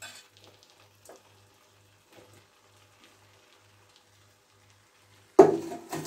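Soft sizzling and faint crackling of a thick onion-tomato masala frying in a nonstick pan with shredded boiled chicken piled on top. Near the end there is a sudden, much louder sound lasting about a second.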